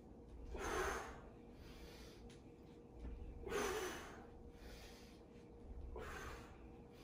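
A man breathing hard from the effort of mace squats, with a heavy exhale about every two and a half to three seconds, three times, in time with his reps.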